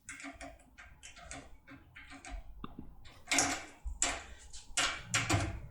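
Metal clicks and rattles of a foil lockpick decoder being rocked under tension in a lock cylinder, with sharper knocks in the second half as the lock is worked open.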